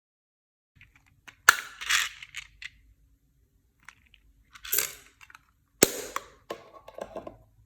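Brittle crunchy things being crushed by hand, in three bursts of sharp crackling snaps: about a second and a half in, near five seconds, and near six seconds.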